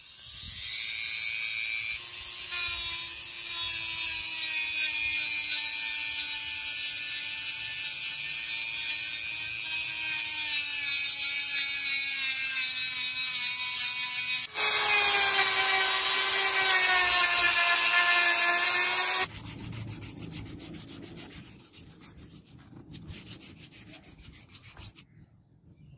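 Handheld rotary tool with a sanding drum whining steadily as it sands a wooden knife handle; about halfway through the whine jumps to a higher pitch and gets louder, then stops after about five seconds. Then sandpaper rubs against the wood by hand in quick, even back-and-forth strokes, stopping shortly before the end.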